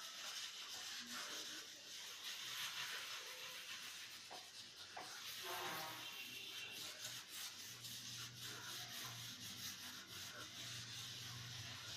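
A hand rubbing and wiping over glazed ceramic wall tiles, a faint continuous scrubbing, as it clears off grease that has been softened by steam.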